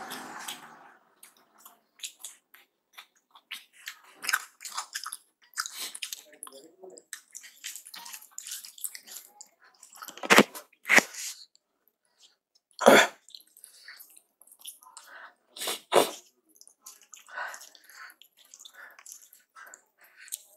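Close-up eating sounds of rice and aloo keema being eaten by hand: irregular chewing and wet mouth smacks, with a few sharper, louder smacks in the middle.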